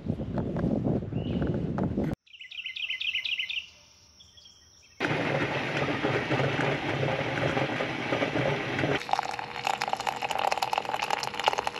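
Wind on the microphone, then a bird singing a short run of quick repeated chirps, then a steady hiss and bubbling from a stainless stovetop coffee percolator on the boil. From about nine seconds in, coffee is poured from the percolator into an enamel mug, splashing.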